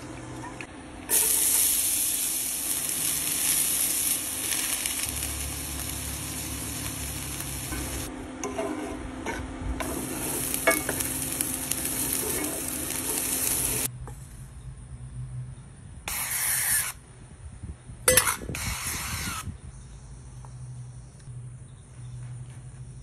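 Diced onions and green peppers sizzling in a hot cast-iron skillet, with a utensil clinking and scraping against the pan as they are stirred. The steady sizzle starts about a second in and cuts off just over halfway through. A couple of short sizzling bursts and some sharp clicks follow, then only a faint hum.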